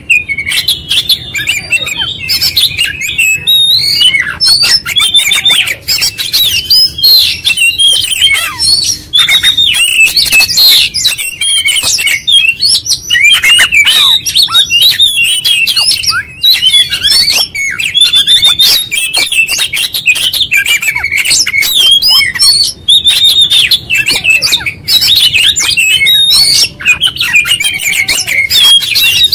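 Caged oriental magpie-robin in full song, working through its repertoire: a fast, nearly unbroken stream of varied whistles, quick rising and falling notes and clicks, with only a few short breaks.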